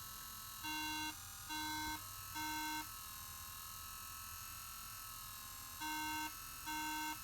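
A MacBook Air beeping three times, about a second apart, then after a pause of about three seconds three times again. On a Mac a repeating three-beep startup code signals a memory (RAM) fault, and this laptop does not work.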